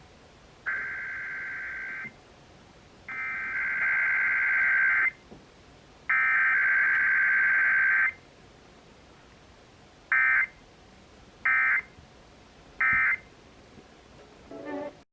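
Emergency Alert System Required Weekly Test on broadcast radio: the SAME digital header, data tones sent three times about a second apart, followed by three short End of Message bursts.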